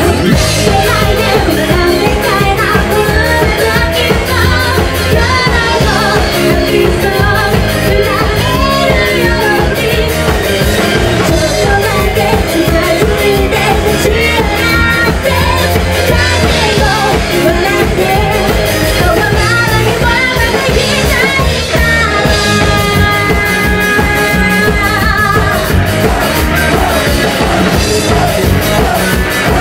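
Live rock band playing loudly, drum kit driving a steady beat under a woman singing lead vocals into a microphone.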